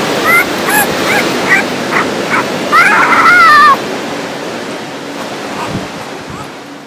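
Newborn Border Collie puppy, held on its back, giving a string of short high squeaks and then one longer, louder whining cry that rises and falls, over a steady hiss. The sound fades out near the end.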